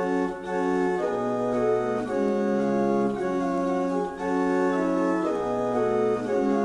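Organ music: slow, held chords that change about once a second.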